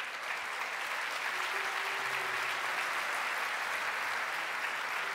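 Congregation applauding, a steady even clapping.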